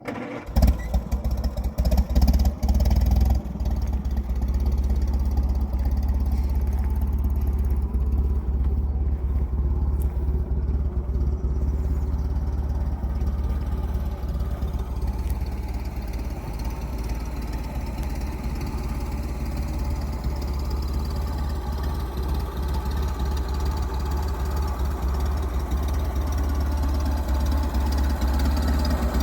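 1928 Chevrolet AB National truck's 171ci four-cylinder engine idling steadily, with a few louder knocks in the first three seconds.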